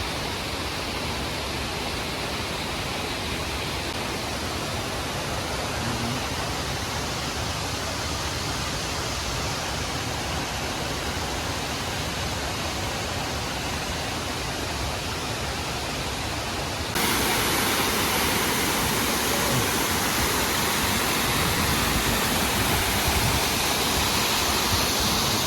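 Waterfall's rushing water: a steady hiss that steps up louder about 17 seconds in.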